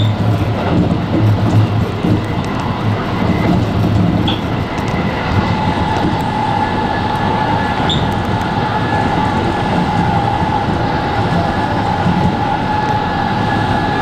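Electric commuter train running on the rails, heard from just behind the driver's cab: steady running noise and rumble. About halfway through, a steady high whine comes in and holds.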